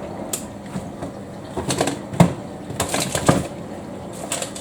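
Samsung washing machine in its drain stage, with irregular knocks and clicks from the drum and tumbling laundry over a steady background.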